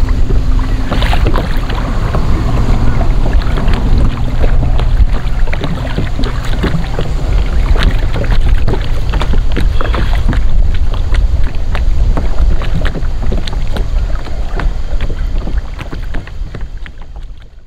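Wind buffeting the microphone in a loud low rumble, with water lapping and slapping against the kayak's hull in many small splashes; it fades out near the end.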